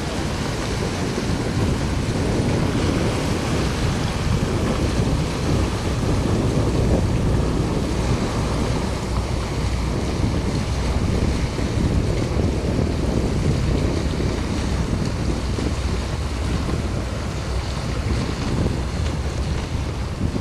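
Steady wind buffeting the microphone over choppy sea water, with a coast guard patrol boat's engine running under it as the boat manoeuvres.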